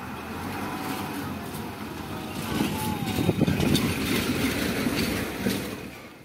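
Road traffic crossing the tracks: a bus drives past close, its engine and tyres loudest a few seconds in, with short knocks over the crossing, then the sound drops away near the end.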